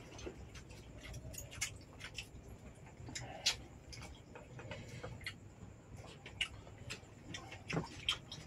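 Oyster shells and a fork clicking and tapping as cooked oysters are picked from their shells and eaten, in irregular light clicks with one sharper click about three and a half seconds in.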